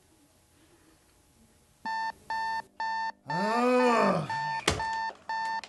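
Digital alarm clock radio beeping, starting about two seconds in at about two beeps a second. Over the beeps comes a drawn-out groan that rises and falls in pitch, then a single sharp knock.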